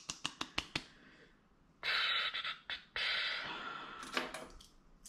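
A quick run of light clicks in the first second, then two long breathy sighs from a person pausing to think.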